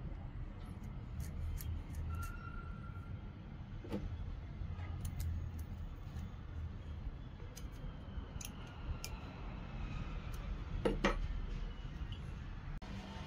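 Small metal clicks and clinks as a slitting saw blade, washers and a metal cup are handled and tightened onto a steel arbor with a hex driver, over a steady low hum. A quick cluster of clicks near the end is the loudest.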